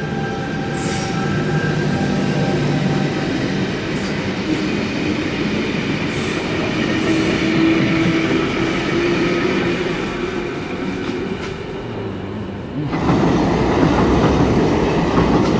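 A V-set double-deck intercity electric train pulling out of the station: a steady rumble of motors and wheels on rail with a few wheel clicks over the track. The rumble grows louder and rougher about two-thirds of the way in.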